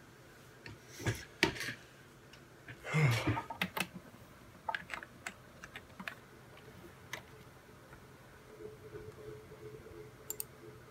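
Handling rustle with one louder bump, then a run of separate key clicks on a white Apple computer keyboard, with a quick pair of clicks near the end.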